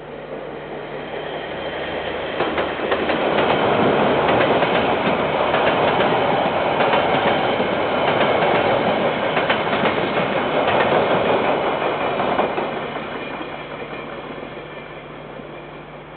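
A KiwiRail freight train passing, its wagon wheels clacking over the rail joints. It grows louder over the first few seconds, runs steadily with repeated knocks, then fades after about twelve seconds. Heard through a security camera's microphone, thin and dull-topped.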